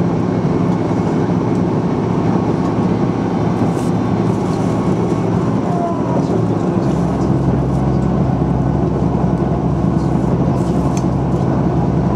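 Diesel railcar (KiHa 110 series) running along the line, heard from inside the cabin: a steady engine drone and running noise, with the engine note dropping about seven seconds in.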